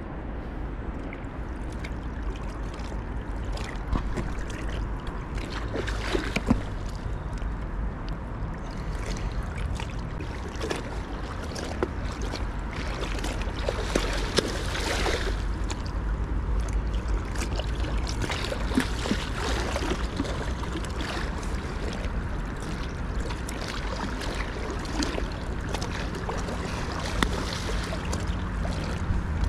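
Water lapping against a small inflatable boat under steady wind rumble, with scattered light knocks. About halfway through comes a splash as a hooked wels catfish thrashes at the surface.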